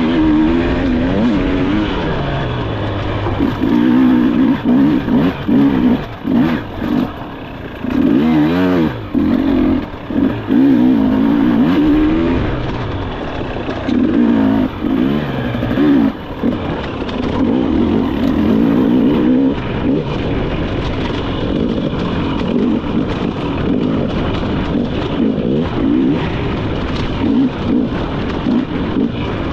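Dirt bike engine ridden hard off-road, revving up and dropping off again and again as the rider accelerates, shifts and brakes, with scattered knocks throughout.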